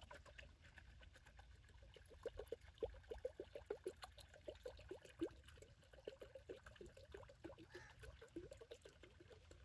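Water poured from a bottle into a clay karahi, gurgling faintly in quick pulses, several a second, from about two seconds in.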